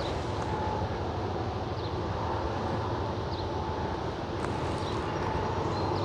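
Honey bees buzzing in a steady hum around an opened hive box, with a single light click about four seconds in.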